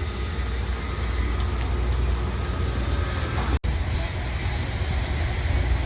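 Steady low outdoor rumble with no distinct source, which cuts out briefly about three and a half seconds in.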